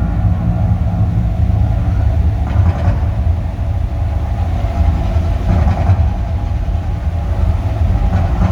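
Deep, steady rumble from the Mirage volcano show's eruption sound effects played over loudspeakers.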